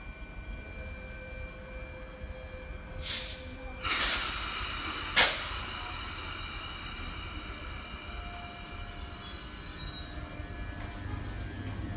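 Compressed-air hiss from an MTR East Rail Line MLR electric train standing at the platform: a short blast about three seconds in, then a longer release about four seconds in that slowly dies away, with a sharp crack a second later. Faint steady whining tones from the train equipment run underneath.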